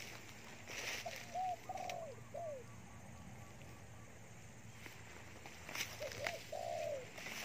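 Spotted dove (tekukur) cooing: two short phrases of arched coo notes, one about a second in and another near six seconds.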